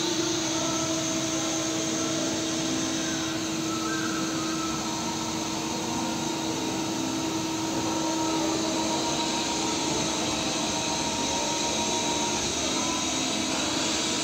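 Mazak Quick Turn Nexus 350M CNC lathe running with its spindle turning the chuck: a steady machine whir with a constant tone.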